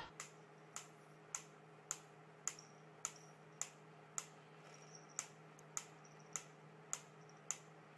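Wooden pyramid-shaped mechanical metronome ticking steadily, a little under two ticks a second.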